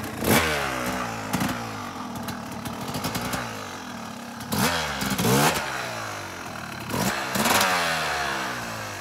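Yamaha YZ250 two-stroke dirt bike engine revving in several short bursts, its pitch rising and falling back between them.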